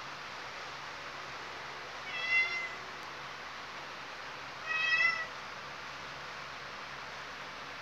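White Khao Manee cat meowing twice: two short pitched meows about two and a half seconds apart, the second a little longer. A steady faint hiss lies underneath.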